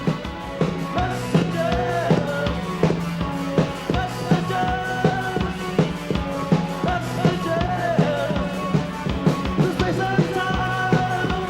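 New wave rock band playing live: a drum kit keeps a steady beat under bass and melodic lines.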